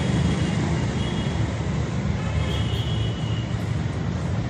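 A train crossing a railway bridge: a steady low rumble with a constant hiss above it and a few faint high squeals.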